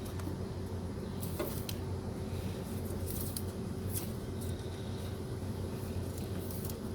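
A steady low mechanical hum, with scattered faint clicks and rustles of hands handling headlight wiring connectors.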